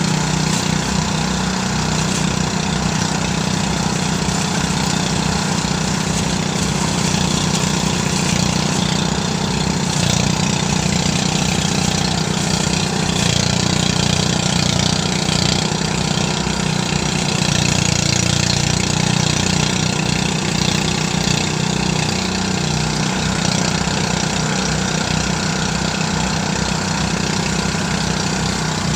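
Motorised rice threshing machine running steadily: a strong low engine drone with a fast, even pulse, over a steady hiss.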